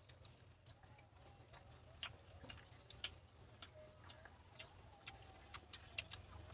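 Near silence with faint, irregular clicks and mouth smacks from people chewing chicken rolls.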